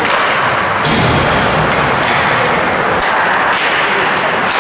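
Ice hockey play in a rink: a steady wash of skate and crowd noise, broken by several sharp knocks of sticks and puck.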